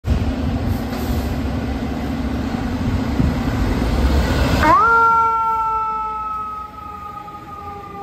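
FDNY ladder truck turning out: a loud, steady rumble with a low hum for about the first half, then a siren that cuts in, rises quickly and then slowly falls in pitch.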